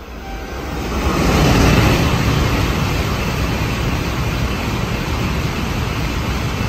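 Tokaido Shinkansen bullet train passing through a station at full speed without stopping: a loud rushing noise that swells over the first two seconds and holds steady while the long train goes by.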